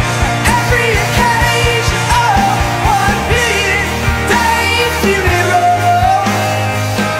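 Rock music soundtrack with a driving drum beat, distorted bass and a bending lead line.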